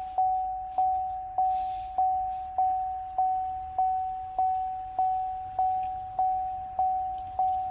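A 2013 Cadillac XTS's warning chime ringing over and over, one single-pitched ding about every 0.6 seconds, each fading before the next, with the car awake during key programming.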